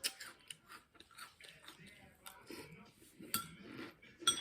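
Close-up mouth sounds of chewing crunchy cereal, Cap'n Crunch in milk: wet crunching with a few sharp clicks, the loudest near the end.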